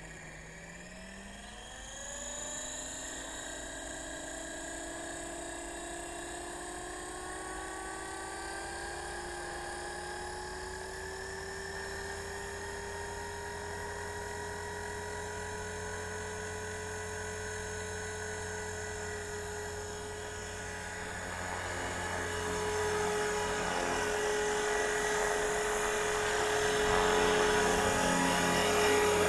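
ALZRC X360 electric RC helicopter's motor and rotor spooling up: a whine that rises in pitch over the first ten seconds or so, then holds steady and grows louder about three quarters of the way through. It runs on a freshly replaced main rotor gear, without the chipped-gear noise.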